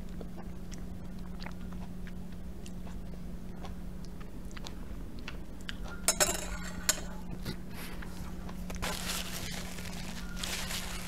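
Soft mouth sounds of chewing ripe mango, then a few sharp clinks about six seconds in as a metal straw knocks against a glass tumbler. Near the end a paper napkin rustles against the mouth. A steady low hum lies under it all.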